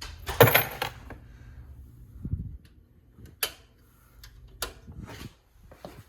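A series of knocks and clicks from someone moving about and handling things. The loudest is a sharp clack about half a second in, followed by a dull thump a little after two seconds and a few scattered clicks.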